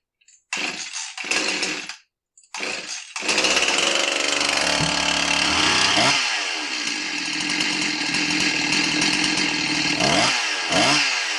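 Husqvarna 346XP two-stroke chainsaw starting: a few short bursts, then the engine catches about three seconds in and runs, revved up and dropped back several times. It gives a clankety, tinging rattle that the mechanic traces to the clutch, whose flyweights are worn and sloppy on the hub, not to the engine.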